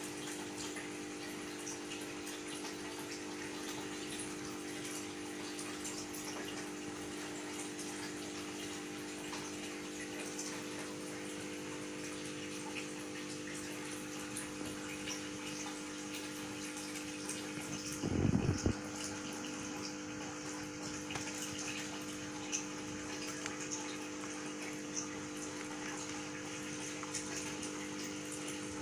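A steady mechanical hum of several held tones under a light hiss. A short, louder low rumbling bump comes about two-thirds of the way through.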